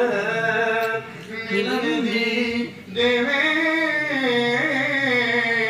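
A man singing a Punjabi naat (Islamic devotional song) in long, ornamented held notes, with two short breaks between phrases.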